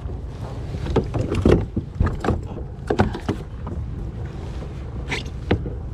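Irregular knocks and clatter inside a kayak, about seven sharp hits spread unevenly, as a hooked fish is handled and unhooked on board, over a low steady rumble.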